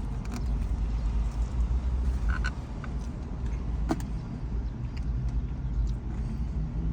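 Chewing and small wet clicks of someone eating saucy chicken wings, over a steady low rumble.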